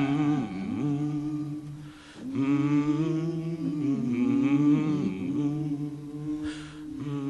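Wordless humming of a slow melodic line with little or no accompaniment in a quiet stretch of a ballad, broken by a short pause about two seconds in.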